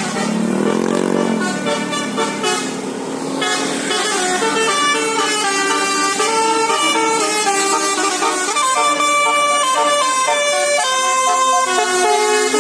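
Telolet basuri melodic bus horn playing a tune in held, stepping notes, with a rising-then-falling sweep about a second in.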